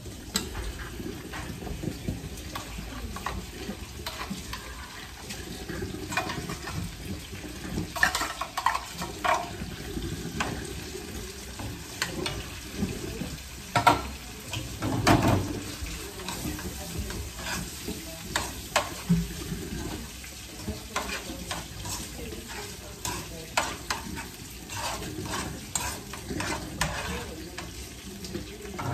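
Canned corned beef frying in a non-stick pan with a steady sizzle, while a utensil stirs and breaks it up, scraping and tapping against the pan again and again.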